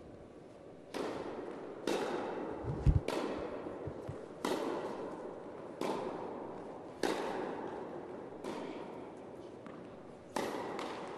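Tennis rally: a serve, then the ball struck back and forth by rackets, a sharp pock about every second to second and a half, eight hits in all. Each hit echoes in a large indoor tennis hall.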